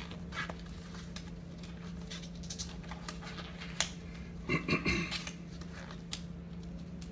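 Quiet room tone with a steady low hum and scattered light clicks and taps, and a brief voice-like sound about four and a half seconds in.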